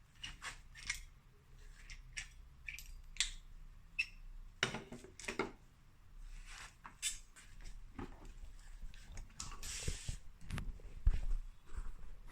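Irregular small clicks, taps and handling noises of tools and parts during work on a refrigerator door hinge, with a scraping hiss lasting about a second some ten seconds in and a few low thumps near the end.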